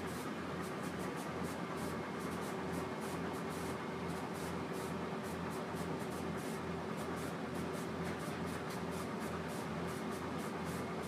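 Inside a moving Uerdinger railbus: its underfloor diesel engine and running gear give a steady drone with a faint hum of steady tones, a regular pulsing in the bass and fast, even ticking on top.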